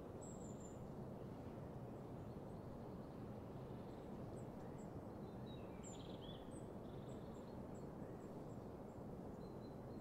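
Faint birdsong, with scattered short high chirps and a few brief calls in the middle, over a steady low background rush.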